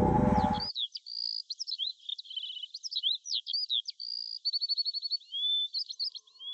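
A loud falling sweep sound effect cuts off under a second in. Then several birds chirp and whistle in a dawn chorus, with quick slurred notes and rapid trills. A faint steady tone begins near the end.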